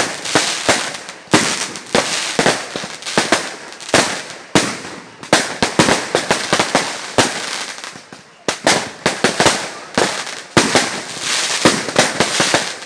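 Fireworks going off: a rapid, irregular series of sharp bangs, several a second, with crackling between them.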